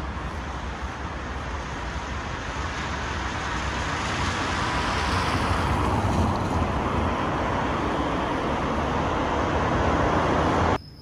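A car passes close by on the street, its tyre and engine noise rising to a peak about six seconds in. The noise stays loud afterwards and cuts off suddenly near the end.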